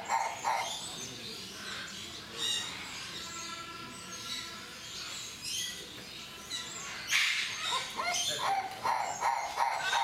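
Livingstone's turaco calling: a rapid series of hoarse, barking notes, about four a second, that breaks off just after the start and starts up again about eight seconds in. Softer chirps fill the pause.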